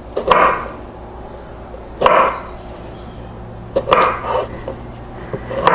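Chef's knife striking a wooden cutting board as a garlic clove is cut, a handful of sharp knocks spaced a second or two apart, two of them close together a little before the end.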